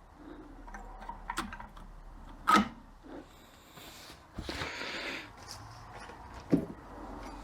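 Light clicks and clinks of 42RE transmission overdrive clutch discs and steel plates being handled and stacked, with two sharp knocks, one about two and a half seconds in and one about six and a half seconds in, and a brief scraping rustle near the middle.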